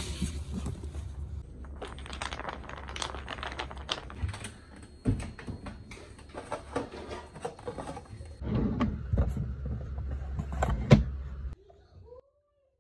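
Household objects being handled, a string of knocks, clicks and rustles as books are stacked, plastic cups are pulled from a cabinet and yarn is tied to a cup, over a steady low hum. A sharp knock about eleven seconds in is the loudest sound.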